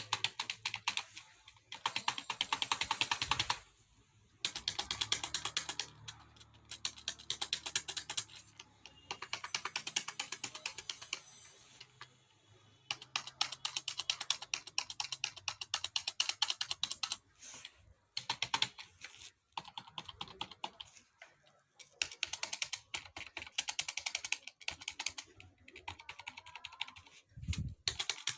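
Computer keyboard being typed on: fast runs of rapid key clicks with brief pauses between them.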